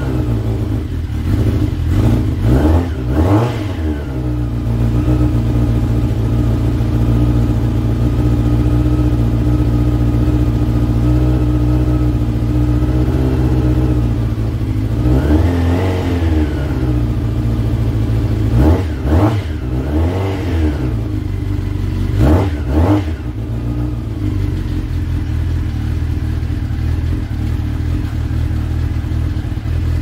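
Honda CBR four-cylinder sport-touring motorcycle engine running at a steady idle, blipped on the throttle several times so the revs rise and fall back. The engine runs cleanly after its flat battery was recharged.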